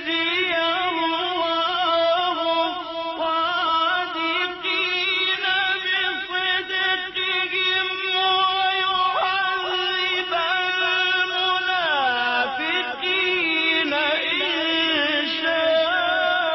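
A Qur'an reciter's voice in tajweed style, holding one long, ornamented melismatic line with no breaks for words. About twelve seconds in, the line makes a sweeping downward glide before it rises again.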